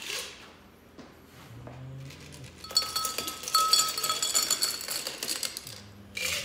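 Ice cubes clinking and rattling into a drinking glass, a dense run of clinks lasting about three seconds from nearly three seconds in, with the glass ringing under them.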